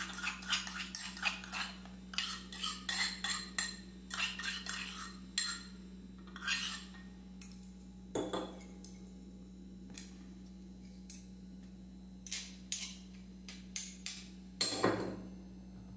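Metal pestle clinking and scraping in a small aluminium mortar as garlic crushed with salt is worked out of it, in quick taps that thin out after about seven seconds.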